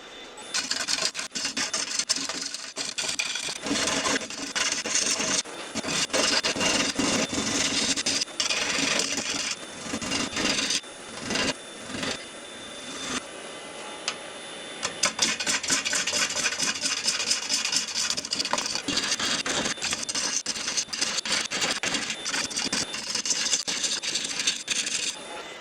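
Yew platter spinning on a wood lathe while being worked by hand: a dry rubbing, rasping sound against the turning wood, in repeated passes that stop and start, over a faint steady whine.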